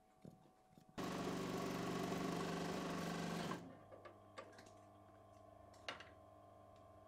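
Industrial sewing machine stitching in one fast run of about two and a half seconds, starting suddenly about a second in and then stopping. A steady low hum remains afterwards, with a single sharp click near the end.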